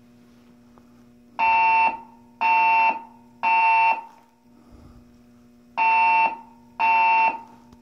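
Hotel fire alarm sounding its evacuation tone in the temporal-three pattern. It plays three half-second beeps, pauses for about a second and a half, then begins the next set of three.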